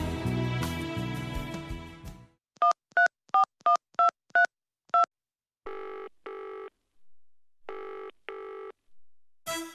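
Touch-tone telephone dialling: seven short two-note beeps. They are followed by a double-ring ringing tone heard twice on the line, with music fading out just before and new music starting near the end.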